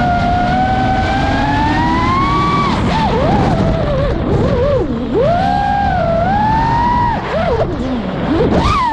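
FPV freestyle quadcopter's brushless motors whining, the pitch sweeping up and down with the throttle. The pitch climbs slowly for the first few seconds, then swoops rapidly, with deep drops where the throttle is chopped around the middle and again near the end, before a sharp rise.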